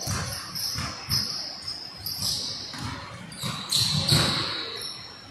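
Basketball game on a hardwood court: the ball bouncing in repeated thumps and sneakers squeaking in short high squeals as players run the floor, echoing in a large gym.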